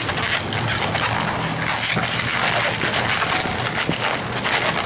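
Inflated green 350 latex twisting balloon being squeezed and twisted by hand into a petal, with steady rubbing and crackling of the latex.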